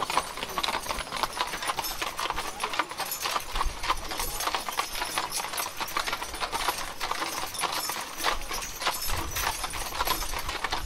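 A team of three mules walking on asphalt, their hooves clip-clopping in a steady, continuous run of sharp strikes as they pull a wagon.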